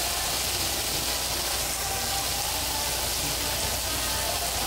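Chicken pieces sizzling on a hot flat-top griddle: a steady hiss.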